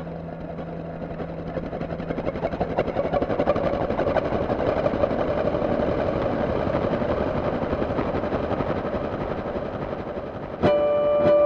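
A dense, fluttering rumble like a helicopter swells and eases. About ten and a half seconds in, a guitar chord is struck and rings on, with another pluck soon after.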